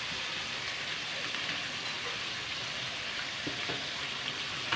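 Marinated pork chops frying in oil in a wok: a steady sizzle with a few faint pops.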